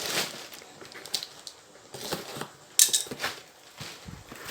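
A metal ceiling fan blade being handled and flexed: scattered clicks and light knocks, the sharpest about three seconds in.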